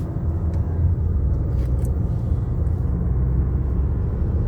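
Car driving along a road: steady low rumble of engine and tyre noise, with a few faint clicks and rattles.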